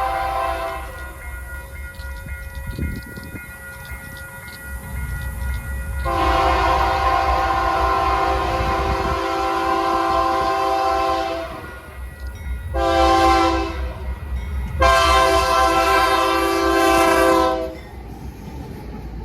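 Union Pacific freight locomotive's multi-chime air horn sounding the grade-crossing signal: the end of one long blast, then a long blast, a short one and a final long one. Under it runs the steady low rumble and wheel clatter of the passing manifest train.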